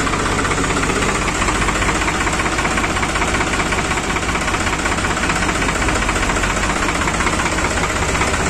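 New Holland 3630 TX Plus tractor's three-cylinder diesel engine idling steadily, with a rapid, even beat.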